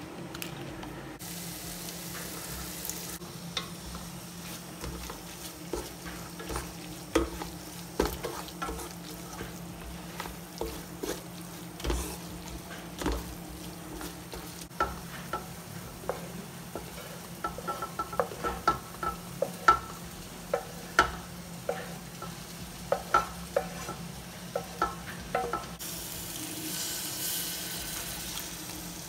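Wooden spatula stirring a thick masala in an aluminium pot, with frequent sharp knocks and scrapes against the pot over a low frying sizzle. Near the end, water is poured into the hot masala, adding a hissing sizzle.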